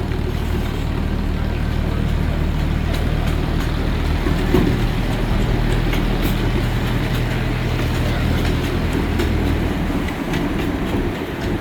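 Miniature train running along its track, heard from the front car: the locomotive's engine hums steadily under the rumble of the wheels on the rails, with scattered light clicks from the track. The engine hum drops away briefly near the end.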